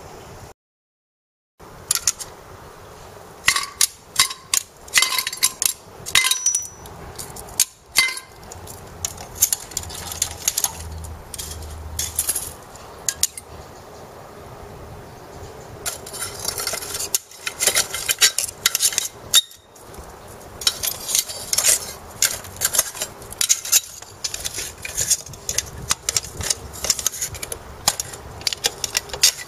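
Repeated metallic clinks and clanks of a brush cutter's sheet-metal muffler knocking against metal as it is handled, set on a wire grill and put into a burner.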